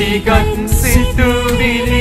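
Sinhala devotional hymn: a voice singing a held, wavering melody line over instrumental backing.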